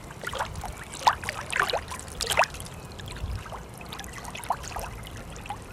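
Water trickling and lapping, with many small plinks and drips scattered through it.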